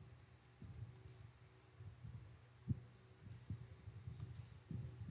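Faint, scattered clicks and low knocks from a computer mouse and keyboard being used, over a low steady hum.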